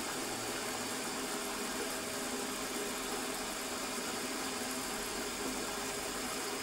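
Milling machine running steadily: an even motor and spindle hum with a few faint steady tones.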